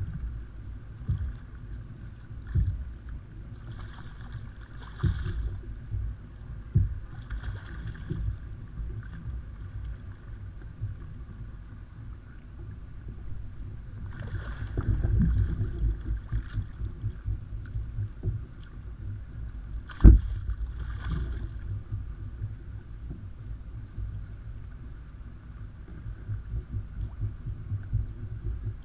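Water lapping and slapping against a kayak's hull: irregular low thumps and rumble, with one sharp knock about twenty seconds in.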